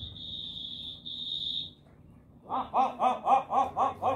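A high, steady whistle lasting about a second and a half, then after a short pause a quick run of rising-and-falling calls, about four a second.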